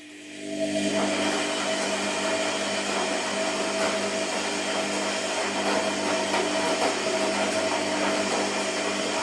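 Washing machine motor starting up within the first second and then running steadily: a steady whine with several tones over a rushing noise.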